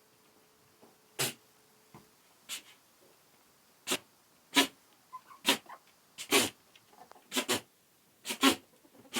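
Goats sneezing: about ten short, sharp sneezes, coming faster in the second half.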